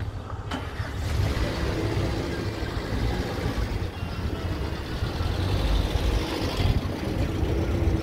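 A motor vehicle's engine running close by, swelling about half a second in and easing off near the end.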